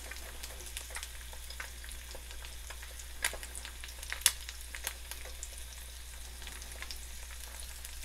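Eggs frying in avocado oil in a pan: a steady sizzle with scattered sharper crackles and pops.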